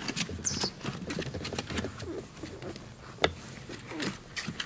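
Newborn Great Dane puppies squeaking in short, wavering cries, with one sharp click about three seconds in.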